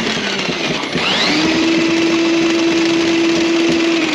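Battery-powered Milwaukee drain snake running in a tub drain. Its motor spins up with a rising whine about a second in, then runs at a steady hum, working to clear a hair clog from the slow-draining tub.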